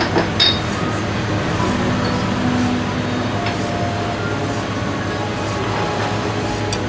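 Steady kitchen room noise with a low hum, and a few light clicks near the start as the blade of a yanagiba slicing knife meets the wooden cutting board while scoring squid.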